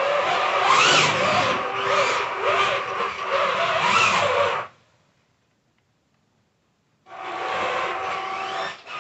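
SG1203 RC tank's electric drive motors whining as it drives, the pitch rising and falling with the throttle. It cuts off suddenly about five seconds in, and after two seconds of near silence starts up again.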